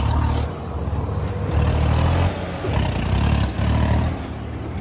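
Diesel tractor engine revving, its low note surging and dropping back several times.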